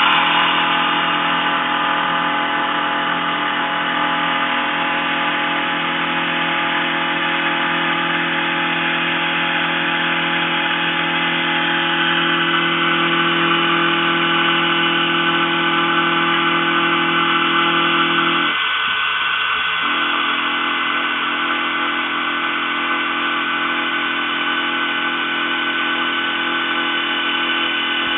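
CNC mill's spindle running and its cutter milling steel on an adaptive toolpath, a steady whine of several held tones. The lower tones cut out for about a second about two-thirds of the way through, then resume.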